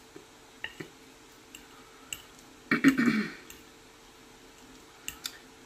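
Eating sounds: a metal fork clicking lightly against a plate of salad a few times, and about three seconds in a louder mouth noise lasting about half a second.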